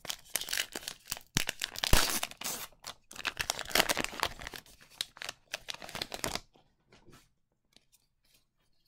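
A 2019 Topps Heritage High Number baseball card pack being torn open, its wrapper crinkling and tearing in a dense run of crackles that stops about six and a half seconds in, followed by a few faint ticks.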